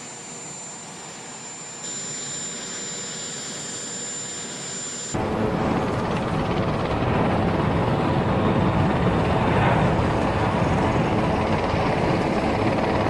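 VC-25A (Boeing 747) jet engines whining with a steady high tone. About five seconds in, the sound cuts to the much louder, steady rush of the four turbofans at takeoff power as the jet rolls and lifts off.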